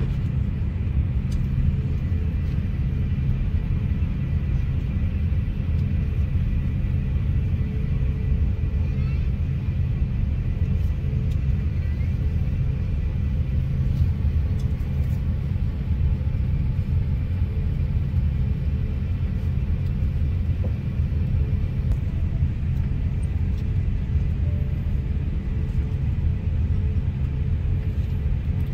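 Steady low rumble of cabin noise aboard an Asiana Airbus A350-900 airliner, with a faint steady hum over it.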